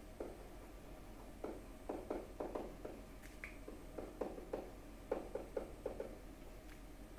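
Pen stylus tapping and clicking lightly against a tablet screen while handwriting, in two clusters of quick taps.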